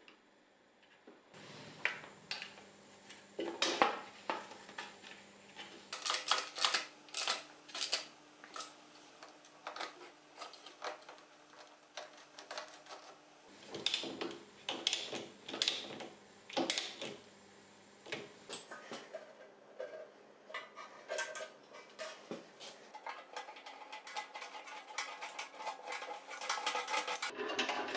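Hand tools and small metal parts clinking and clicking in many short, separate taps: a cable lug bent in a steel bench vise, a wrench fitting a nut on a starter motor terminal, and a screw worked into a steel plate.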